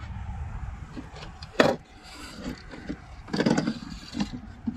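A pleated RV window blind being handled and pushed together on a plastic folding table: a sharp click about one and a half seconds in, then a rustling, knocking burst later, with small taps between. A low rumble sits under the first two seconds, then fades.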